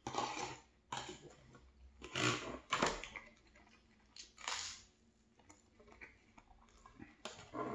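Close-up eating sounds: a fork scraping food from an aluminium foil tray and bites of crunchy buttered toast being chewed, in several short bursts with quiet gaps between them.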